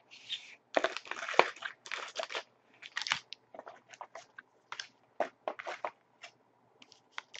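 Foil trading-card packs and plastic wrapping crinkling as they are handled and pulled out of the box. A dense run of crinkles comes in the first two seconds or so, then scattered crackles.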